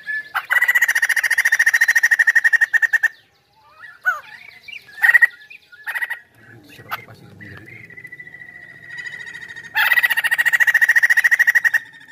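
White-crested laughingthrush singing vigorously: two long, loud, rapidly pulsed chattering trills, with short notes and a long held whistle between them.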